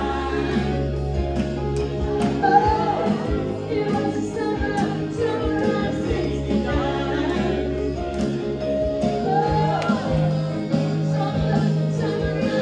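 Live cover band playing, with drums, electric guitar and singing, steady and loud throughout.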